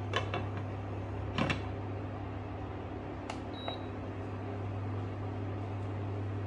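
Glass lid set down on a stainless steel pot: light clinks at the start and a louder knock about a second and a half in, then a click and a short high beep a little after three seconds. A steady low electric hum runs underneath.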